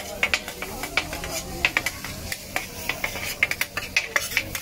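Two metal spatulas scraping and clacking on a large flat steel griddle as fried noodles are tossed, in quick irregular strokes over the sizzle of frying.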